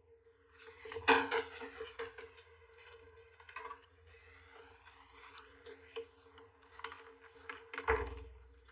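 A series of knocks and light clatter, the loudest about a second in and another with a dull thud near the end, over a faint steady hum.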